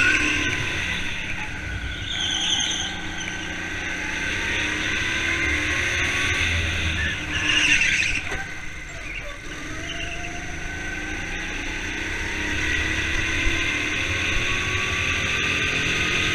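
Go-kart motor running hard around the track, its pitch dropping about nine seconds in and then climbing steadily as it accelerates again, with two short tyre squeals about two and a half and seven and a half seconds in.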